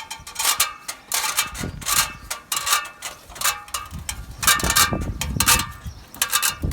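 Metal ladder being handled and put up, its rungs and fittings clanking and clicking in an irregular run of sharp, ringing metallic knocks, several a second.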